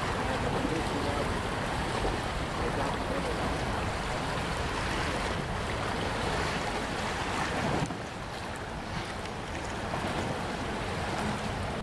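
Wind buffeting the microphone, a steady rush with a heavy low rumble, mixed with the wash of the flooding Mississippi River. It drops a little about eight seconds in.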